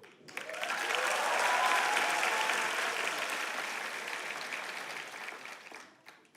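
Audience applauding. It builds up over the first second, holds, and dies away near the end.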